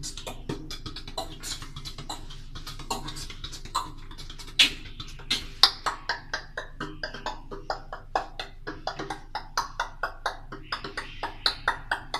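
Vocal beatboxing: a fast, rhythmic run of sharp percussive mouth clicks and pops, made with both hands cupped around the mouth, growing quicker and more regular in the second half.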